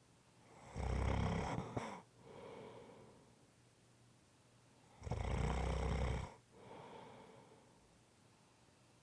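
A person snoring in deep sleep: two loud, rumbling snores about four seconds apart, each followed by a softer breath.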